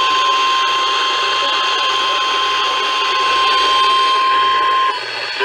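NOAA Weather Radio warning alarm tone: a single steady 1050 Hz tone over radio hiss, cutting off suddenly near the end. It is the alert signal that a weather warning broadcast is about to follow.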